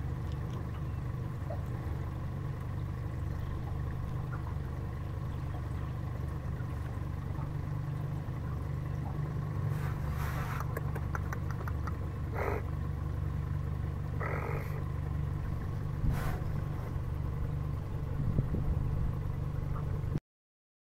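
Steady low hum of an idling boat motor, with a few brief sharper noises over it about halfway through.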